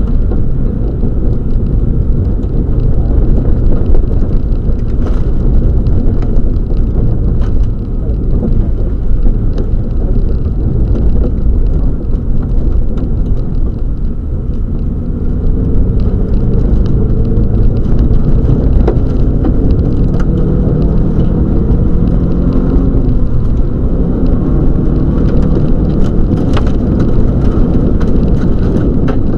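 Subaru Legacy rally car at full speed on a wet gravel stage, heard from inside the cabin: loud, steady engine and road noise, with the engine note rising and falling with the throttle and gear changes in the second half. Scattered sharp ticks come through as well.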